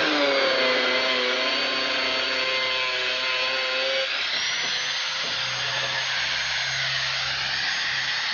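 Angle grinder cutting steel: a loud, steady high whine over a grinding hiss. About four seconds in, the pitch rises as the motor speeds up and holds there.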